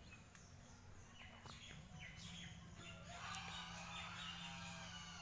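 Small birds chirping and twittering, sparse at first and busier from about halfway through, over a faint steady low hum.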